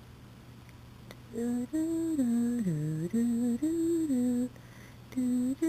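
A person humming a slow tune: a run of held notes stepping up and down, starting about a second in, pausing briefly near the end, then resuming.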